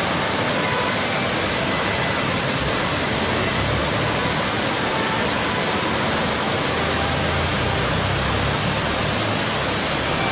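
Kibune River, a mountain stream, rushing steadily over rocks. A low rumble joins it near the end.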